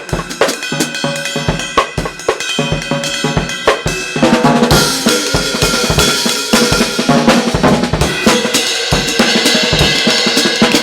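Ellis drum kit with Zildjian cymbals played hard: a fast, busy independence pattern of bass drum, snare and hi-hat, with a loud cymbal wash coming in about four and a half seconds in.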